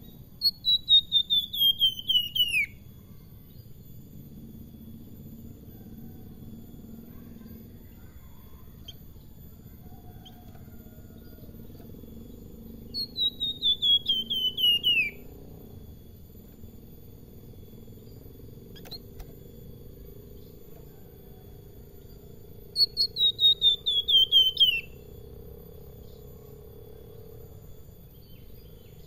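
A caged flamboyan (salakan) sings three times, about ten seconds apart. Each song is a quick run of about eight to ten notes that steps down in pitch over some two seconds, the falling run that keepers call besetan.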